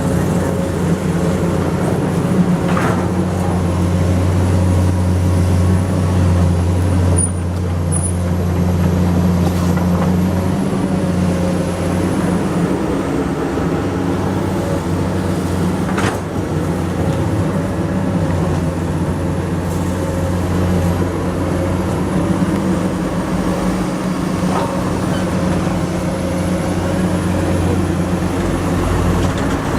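Komatsu PC200 excavator's diesel engine running steadily, easing off slightly about ten seconds in. There is a sharp knock about 16 seconds in.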